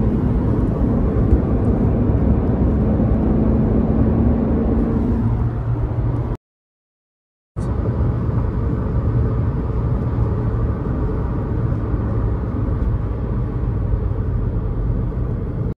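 Steady engine and road rumble inside the cabin of a moving Maruti Suzuki Ignis, with a faint engine hum over the first few seconds. The sound cuts out completely for about a second midway, then the same rumble resumes.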